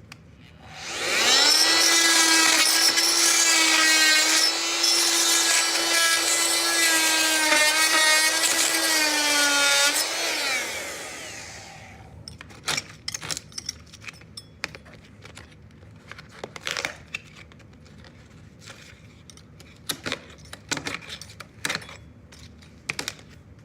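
Harbor Freight oscillating multi-tool running for about nine seconds, a steady high buzzing whine as its blade undercuts wooden trim, then winding down. After it stops come scattered light knocks and clicks.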